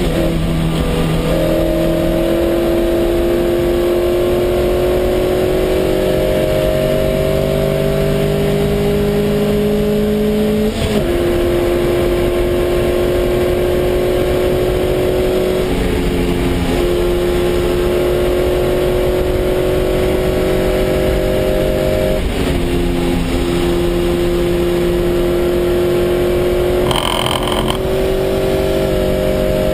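Lotus Elise race car's engine under hard acceleration, heard from inside the cockpit. Its pitch climbs slowly through each gear, with upshifts about 11 and 22 seconds in.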